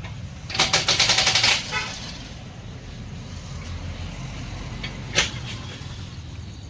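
A power wrench rattles in a fast burst of impacts lasting about a second, during brake caliper work. A low steady hum follows, with a single sharp click about five seconds in.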